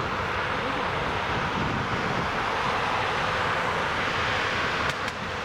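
Steady jet engine noise from a Bombardier Global Express business jet's twin Rolls-Royce BR710 turbofans as it climbs out after takeoff. A couple of faint clicks come near the end.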